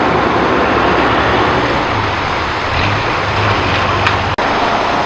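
Steady road traffic noise from vehicles passing on the highway, with a low engine hum about two seconds in. The sound cuts out for an instant near the end.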